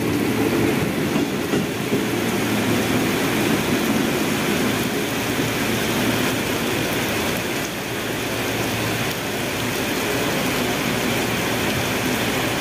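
Electric commuter trains (KRL Commuter Line EMUs) rolling slowly along the station tracks, the steady run of wheels on rail mixed with the hiss of heavy rain.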